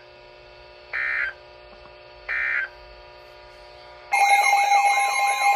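Emergency Alert System digital data bursts: two short, harsh squawks about a second and a half apart over a low steady hum, which are the end-of-message code after a broadcast warning. About four seconds in, a loud steady alert attention tone starts abruptly, opening the next warning.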